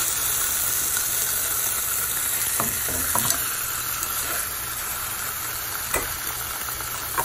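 Skinless chicken thighs sizzling steadily as they sear in a hot, spray-oiled skillet. A few light clicks come a few seconds in and again near the end as the pieces are shifted with metal tongs.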